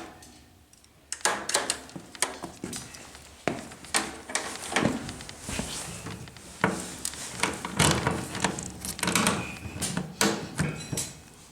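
Irregular knocks, clicks and clatter of parts being handled and fitted together while assembling a highbanker dredge, after a brief quiet first second.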